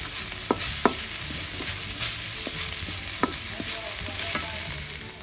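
Minced pork sizzling in a metal wok while a wooden spatula stirs and scrapes it, with a few sharp clicks of the spatula against the pan.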